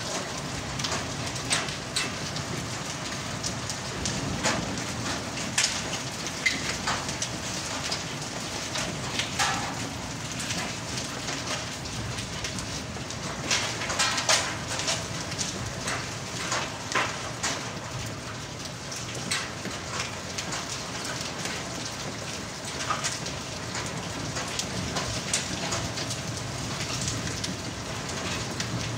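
Hailstorm: a steady hiss of rain with many sharp clicks of hailstones striking hard surfaces, the strikes coming thickest about halfway through.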